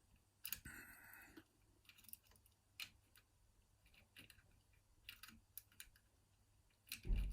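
Faint, scattered clicks and a brief scrape of a wire pick working the levers inside a 5-lever mortice lock, with a soft knock near the end.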